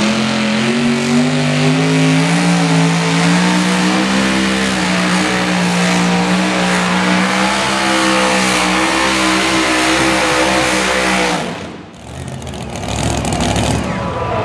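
Supercharged engine of a two-wheel-drive pulling truck at full throttle, dragging the pulling sled. Its pitch climbs in the first second and then holds steady for about ten seconds before cutting off suddenly; a rougher, noisier rumble follows near the end.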